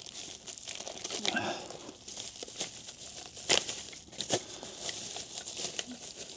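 Packaging crinkling and rustling in the hands as a small part is unwrapped, with scattered sharp crackles.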